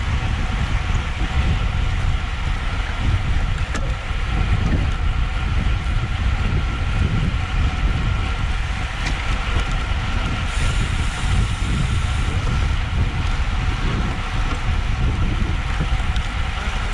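Steady wind noise buffeting the microphone of an action camera carried on a moving road bike, a heavy low rumble with a faint steady hum above it.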